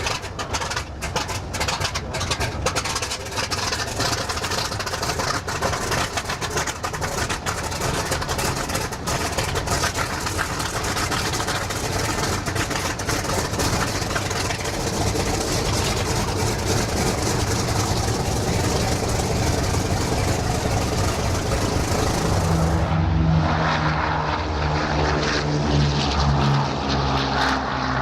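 Propeller airplane engine running, a dense steady noise that grows somewhat louder. In the last few seconds a low, steady engine hum stands out clearly.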